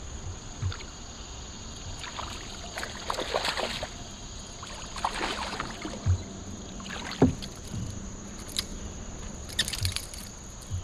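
Splashing water and knocks against a kayak's hull while a hooked fish is fought and brought aboard, in irregular bursts with a sharp knock about seven seconds in as the loudest sound.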